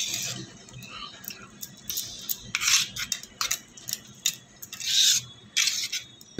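A whisk beating thick gram-flour and yogurt batter in a metal pan: uneven scraping swishes against the pan with light clicks, the longest strokes near the middle and about five seconds in.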